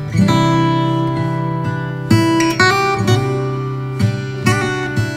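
Background music: acoustic guitar strumming a chord sequence, with a new strum every half second to a second.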